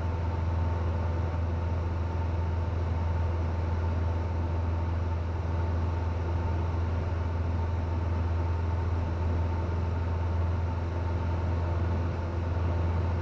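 Steady drone of a Cessna 172N's four-cylinder Lycoming engine and propeller in flight, heard inside the cockpit, with a faint steady high tone above the low hum.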